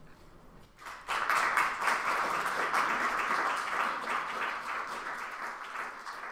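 Audience applauding, starting suddenly about a second in and slowly dying away toward the end.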